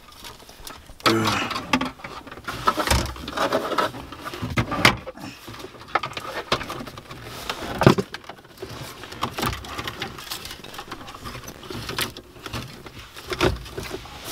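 Irregular clicks, knocks and rustling from a car-stereo wiring harness, its plastic plugs and the dashboard trim being handled by hand.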